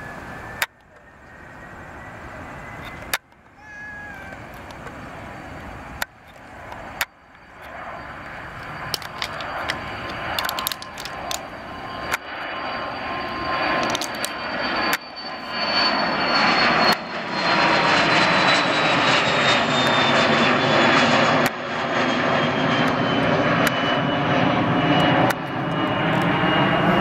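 Airliner's engines growing steadily louder as it comes close, with a high whine that slides slowly down in pitch as it passes. Sharp clicks cut through it every few seconds.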